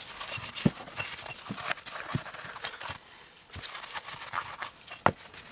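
A few scattered light knocks and clicks, with faint rustling in between: the metal turbocharger housing being handled and wiped down during cleaning.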